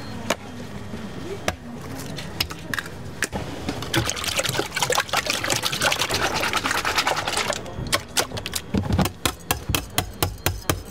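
Raw eggs being beaten with a wire whisk in a plastic tub for a schnitzel egg wash. After a few scattered knocks comes a wet, sloshing run of fast strokes, then rapid clicking taps of the whisk against the tub, about five a second, near the end.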